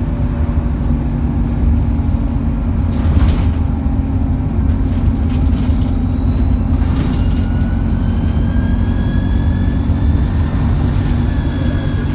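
Alexander Dennis Enviro200 bus under way, heard from inside the cabin: a steady low engine drone with a thin high turbo whine that climbs about seven seconds in and then holds. A couple of brief knocks or rattles sound along the way.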